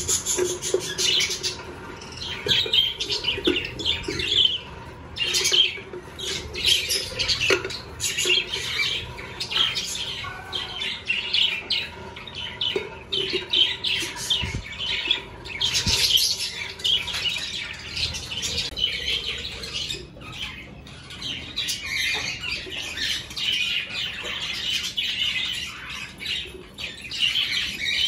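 A flock of budgerigars chattering together, a constant dense twitter of overlapping short chirps.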